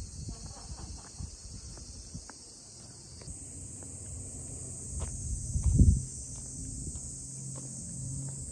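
Insects shrilling in the shrubbery as a steady high hiss, which grows louder about a third of the way in. Under it are a few footsteps, low wind rumble on the microphone, and a louder thump about two-thirds of the way through.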